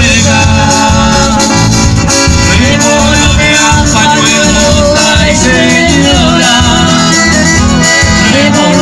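Live cueca played loud through a PA system: an accordion carries the melody over electric guitar and a drum kit, without a break.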